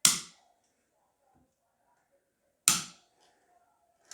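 Hammer strikes on a steel main bearing cap of a Datsun L18 engine, each with a short metallic ring: two sharp blows about two and a half seconds apart, then a lighter tap near the end. The taps are meant to free the stuck cap while a chain holds it under upward tension.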